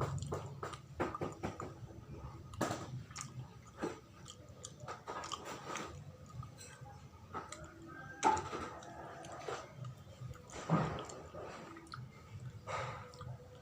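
Chewing of sawella, a sticky sweet of glutinous rice, coconut and palm sugar, with many small irregular mouth clicks and a few louder ones.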